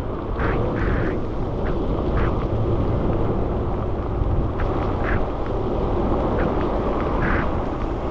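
Bicycle riding on a rain-soaked street: steady rumbling wind noise on the microphone and road noise, with short hissy splashes scattered throughout.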